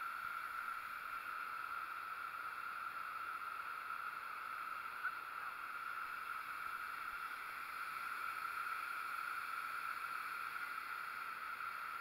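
Steady rushing of a waterfall close by, the curtain of falling water heard from just behind it.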